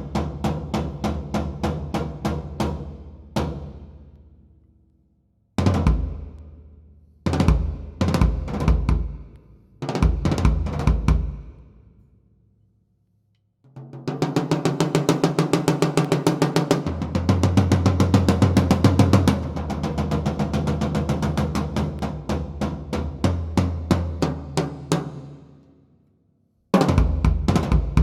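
Sakae Trilogy drum kit, 3-ply maple/poplar/maple shells, being played in a sound check. A run of even strokes dies away about three and a half seconds in. After a pause come short groups of hits with low, ringing drum tones. Then, after another short silence, a long run of fast strokes goes on for about twelve seconds before stopping near the end, where a new burst of hits begins.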